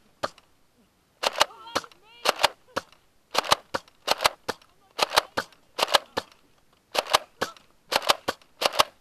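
Nerf foam-dart blasters being fired repeatedly: more than a dozen sharp clacks, mostly in quick pairs, about one pair a second.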